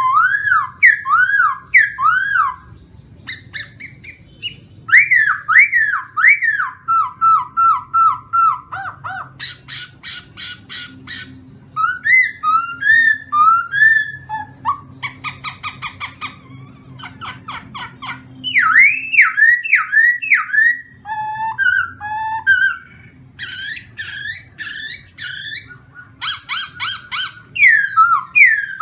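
A caged khướu mun (black laughingthrush) singing loudly: runs of slurred whistled notes that rise and fall, several a second, mixed with harsher chattering notes and broken by short pauses.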